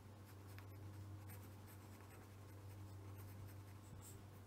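Faint scratching of a pen writing on paper, over a steady low hum.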